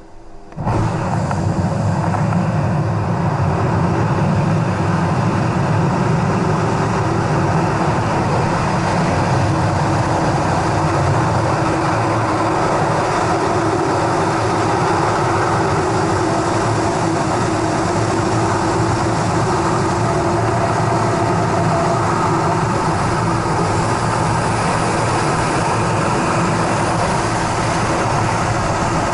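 Wind rushing over a helmet camera's microphone in freefall, starting suddenly about half a second in as the flyer leaves the aircraft door, then holding steady and loud.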